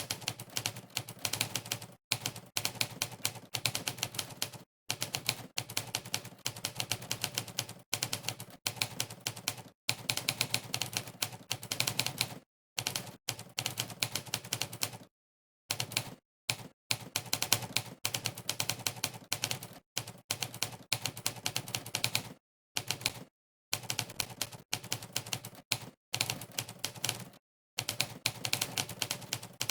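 Monkeytype's typewriter sound effect, a typewriter keystroke click played for each key pressed during fast typing: rapid runs of crisp clicks broken every second or two by short gaps of dead silence.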